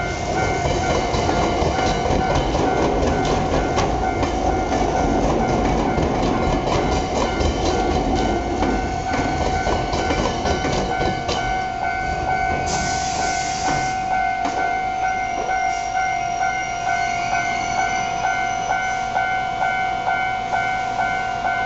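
Japanese level-crossing warning bell ringing steadily in quick regular pulses while an Iyotetsu Takahama Line electric train rolls across, its wheels clattering on the rails. The train noise fades a little past halfway, after a short hiss, leaving the bell ringing on its own.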